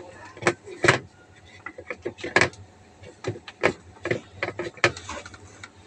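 Irregular sharp clicks and knocks of a plastic washing-machine filter being handled and fitted back into place, about fifteen in all, the loudest in the first half.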